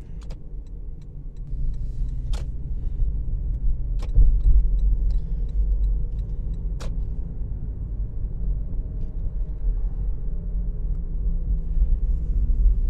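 A car's steady low road rumble while driving, heavier from about four seconds in, with a few sharp knocks or clicks, the loudest about four seconds in.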